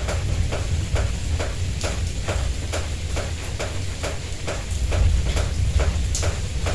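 Steady rain with water dripping close by, a sharp drip about three times a second, over a steady low rumble.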